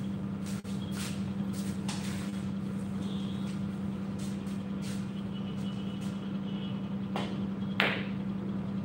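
Pool shot: two sharp clicks near the end, the cue tip striking the cue ball and then the louder crack of the cue ball hitting a cluster of object balls. A few lighter clicks come earlier, over a steady low machine hum in the room.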